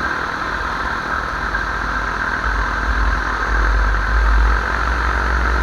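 Paramotor engine running steadily in flight, with a heavy low rumble underneath that grows louder about halfway through.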